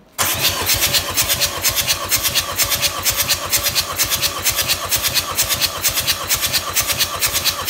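Starter motor cranking a 1.9-litre AWX turbodiesel engine without it firing, for a cold compression test on the first cylinder. It makes a fast, even chugging, one pulse for each compression stroke, and starts abruptly just after the beginning.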